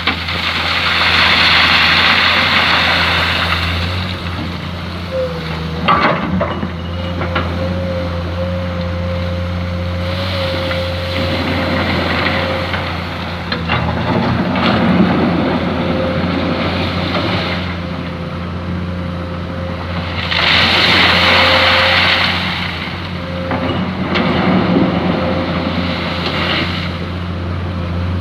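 Diesel excavator running steadily with a constant hydraulic whine while it digs sand. Every ten seconds or so it swells for a few seconds into a louder rushing sound, and there are a couple of sharp metallic knocks.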